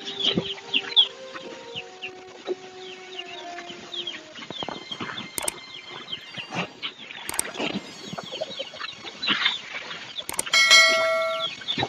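Chickens clucking, with small birds chirping all through. There are a few sharp knocks, and near the end comes a loud steady pitched tone lasting under a second.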